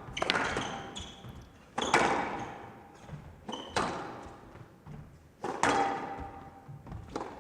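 Squash ball being hit back and forth in a rally: sharp racket-and-wall strikes every second or two, about six in all, each echoing in the glass court.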